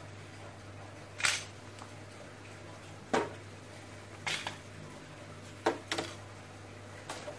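Irregular sharp clicks and knocks of tools and metal parts being handled while working on an amplifier, about six over several seconds, over a steady low hum.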